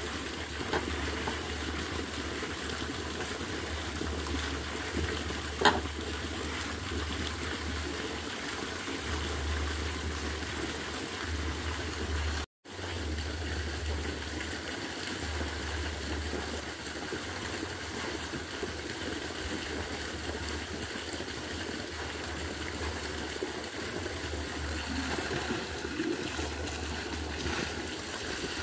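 Water running steadily, with a low rumble that comes and goes, a single click about six seconds in, and a moment of total silence a little before halfway.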